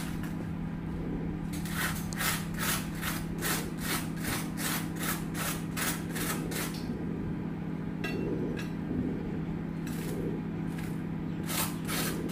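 Rapid, even scraping strokes, about three a second, over a steady low hum; the strokes stop for a few seconds and start again near the end.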